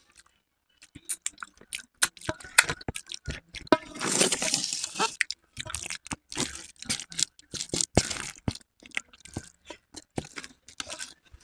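Close-up eating sounds: crisp golgappa puri shells crunching and mouths chewing, with the clink of a fork working noodles in a steel plate. Many sharp crackles, densest and loudest about four seconds in.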